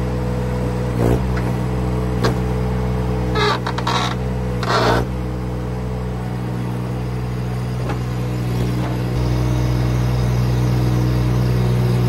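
Baumalight TRL620D mini skid steer's engine running steadily, with a few short clanks and rattles in the first five seconds. The engine note grows louder and heavier about nine seconds in.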